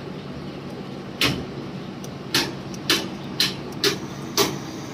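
About six sharp snaps at irregular intervals, starting a little over a second in, over a steady low hum.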